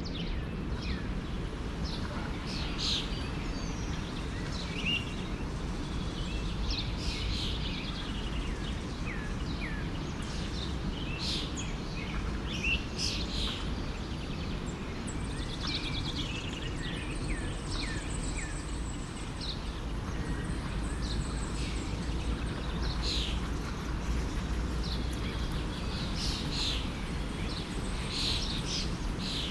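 Several songbirds chirping and singing in short, scattered phrases over the steady rushing of a forest stream.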